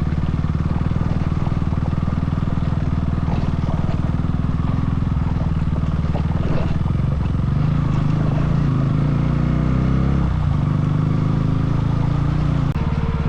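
KTM Duke motorcycle engine running under way. Its pitch climbs for about three seconds from around seven seconds in as the engine revs up, then drops suddenly.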